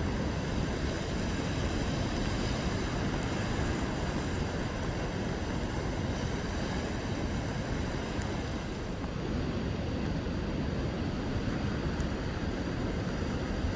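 Rough, storm-driven sea surf breaking on a rocky shore: a steady heavy wash of waves with a deep rumble, probably wind buffeting the microphone.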